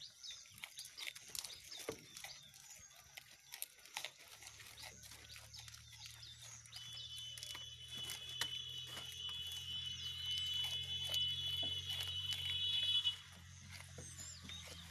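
Goats chewing and tearing cabbage leaves: a steady stream of crisp crunching clicks. A low steady hum sets in about four seconds in, and a steady high-pitched tone sounds from about seven seconds to about thirteen, where it stops suddenly.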